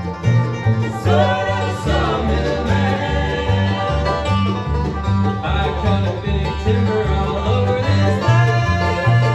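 Bluegrass band playing an instrumental break, with banjo and guitar over a bass line that alternates between two low notes on the beat.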